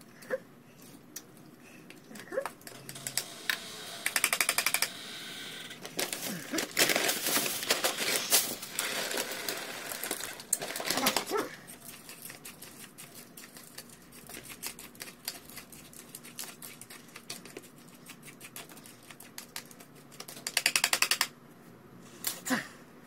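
Hand-held can opener cutting around the lid of a tin of mackerel: bursts of rapid metallic clicking and scraping, loudest in a long stretch a few seconds in.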